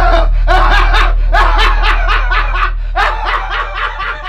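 A man laughing in rapid repeated bursts, over a low steady hum.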